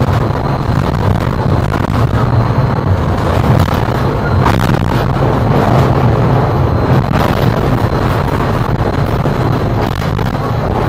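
Inside a moving Sirio low-floor tram: the steady, loud rumble of the car running along its rails, with a couple of brief clatters about halfway through.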